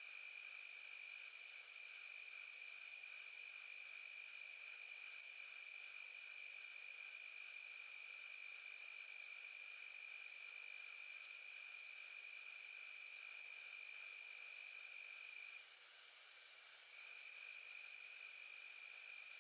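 Field crickets chirping in a steady chorus: a continuous high trill, with a second, lower trill that drops out for about a second roughly three-quarters of the way through.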